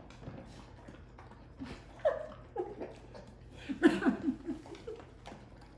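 A woman laughing in short bursts, once about two seconds in and again, louder and in quick pulses, about four seconds in, with quieter eating noises from the dog bowls between.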